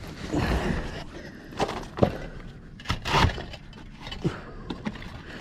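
Concrete roof tiles knocking and scraping against each other as they are lifted and shifted by hand, several separate clunks, with a loose sheet of covering rustling under them.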